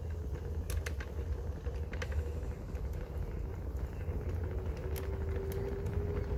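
Electric scooter rolling along a wooden plank boardwalk: a steady low rumble of wheels and wind, with a faint motor whine that shifts pitch about halfway through, and a few sharp clicks.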